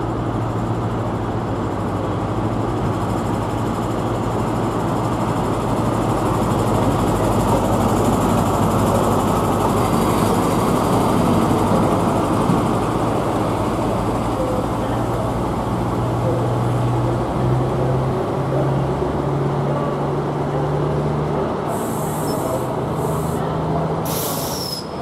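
An Intercity 125 high speed train's Class 43 diesel power car running past at close range, its engine hum over the rumble of the train on the track. In the last third the engine note steps up in pitch, as if the power car is notching up.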